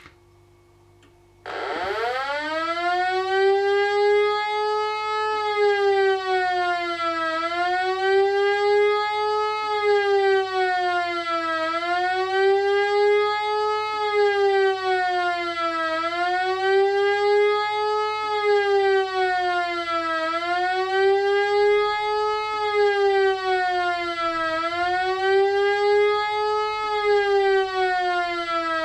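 Home-built siren sounding the Swiss general alarm (Allgemeiner Alarm): it starts about a second and a half in, swoops up to pitch, then wails with a pitch that rises and falls evenly, about once every four seconds.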